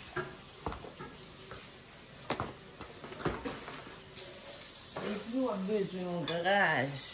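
A few light knocks and clicks of kitchen things being handled and set down on a counter, then a woman's voice near the end.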